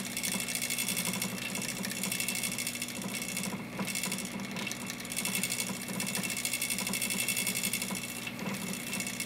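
Small electric motor of a homemade rod-building lathe running steadily, turning a fishing rod blank in its 3D-printed chuck: an even whir with a fast, regular flutter.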